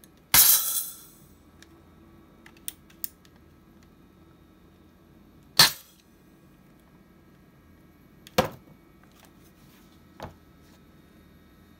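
3D-printed airsoft derringer firing: sharp snaps, the first about half a second in with a ringing tail and another about five seconds later. A third sharp snap and a fainter one follow, with a few light clicks in between.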